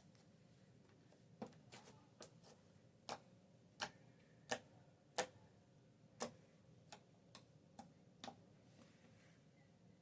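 Slime popping: about a dozen short, sharp pops at irregular intervals, the loudest in the middle, starting about a second and a half in and stopping about two seconds before the end.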